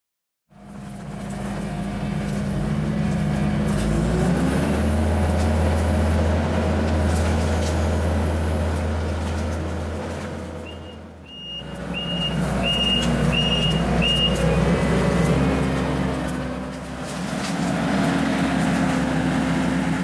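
Kubota compact track loader's diesel engine working under load as the machine pulls trees, rising in pitch about four seconds in. It breaks off briefly a little past the middle and then carries on. A run of about six short high beeps sounds around the break.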